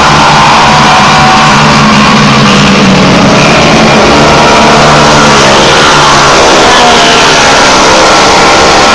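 Several dirt-track racing engines running hard through a heat race, rising and falling in pitch as the vehicles pass. The sound is very loud and distorted on the recording.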